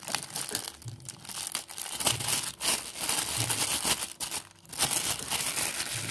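Thin clear plastic bags crinkling and rustling as hands unwrap a packaged part, in uneven bursts with short pauses.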